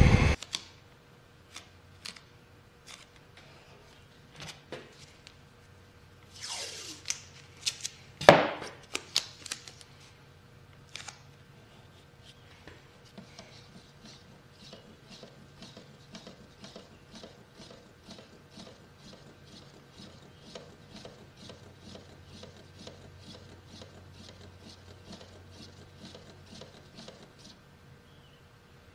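Wooden stir stick stirring paint in a metal can, scraping the can at about three strokes a second through the second half. Before that, scattered handling clicks and knocks, the loudest a single sharp knock about eight seconds in.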